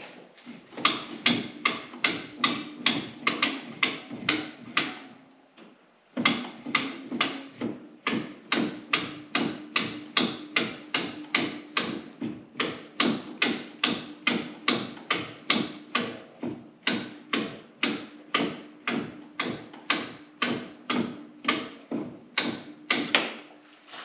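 Sharp, evenly spaced metallic knocks or clicks, about two and a half a second, with a short pause about five seconds in.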